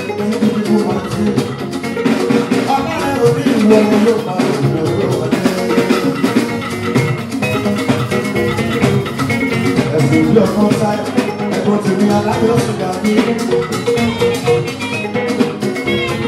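Band music with electric guitars and drums playing a steady dance beat.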